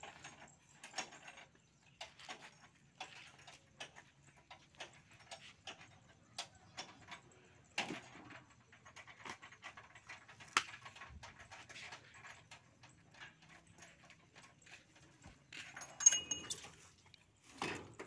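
Irregular knocks and clicks from teak logs being rolled, lifted and set down, over a faint low steady hum.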